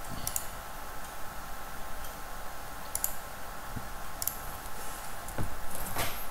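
A computer mouse clicking a few times at spaced intervals over a faint steady hum, with a louder knock near the end.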